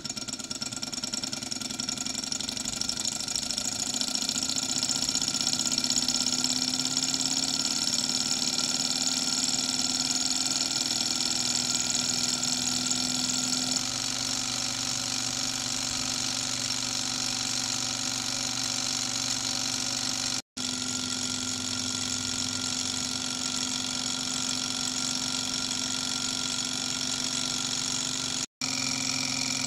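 Small model alpha Stirling engine running steadily, a mechanical running sound with several steady tones from its flywheel, cranks and pistons. The sound cuts out for a split second twice in the second half.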